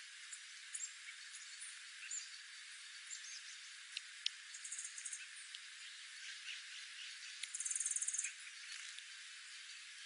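Small songbirds giving scattered high, thin chips and call notes, with a short rapid high-pitched trill about seven and a half seconds in that is the loudest sound, over a steady hiss.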